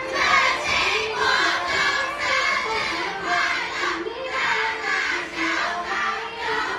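A group of children's voices shouting together in rhythm, about two shouts a second, over backing music with a melody.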